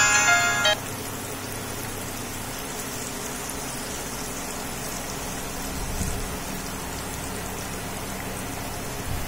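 Batter-coated teasel gourd slices sizzling steadily as they deep-fry in hot oil. A short bit of background music cuts off suddenly under a second in.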